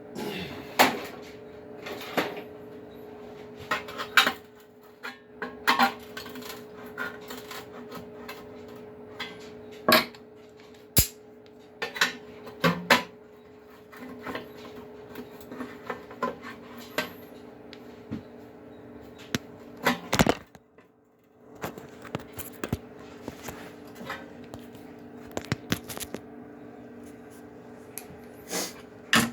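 A screwdriver prying at the cut seam of a Cub Cadet LT1045 lawn tractor muffler: irregular metal clinks, scrapes and knocks, over a steady low hum.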